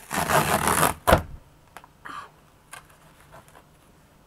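Packaging being ripped open by hand: one loud tearing rip lasting just under a second, followed by a sharp snap, then a few faint rustles and taps.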